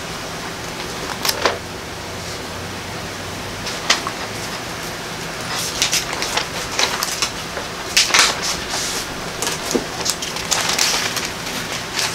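Pages of a Bible being leafed through, the paper rustling and crackling: a couple of single page sounds in the first few seconds, then a busy run of rustling from about halfway in.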